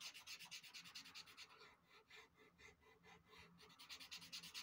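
Faint scratching of a pastel stick on Pastelmat paper in quick back-and-forth shading strokes, several a second, thinning out for a moment in the middle before picking up again.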